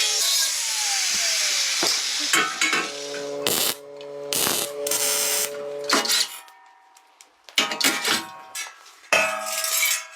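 Hand tools knocking and clinking on metal, a series of sharp irregular impacts. In the first second and a half a whine falls in pitch, as a spinning tool runs down.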